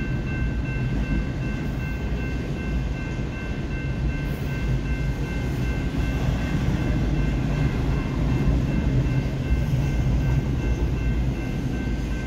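BNSF double-stack intermodal freight train rolling past a grade crossing without sounding its horn: a steady low rumble of wheels on rail, getting a little louder about halfway through. A thin steady high-pitched tone is held over it.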